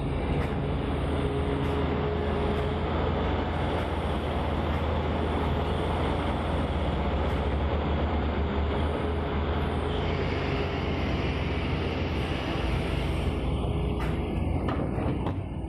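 Large Tata Hitachi hydraulic excavator's diesel engine running steadily under load as the machine digs, swings and dumps its bucket.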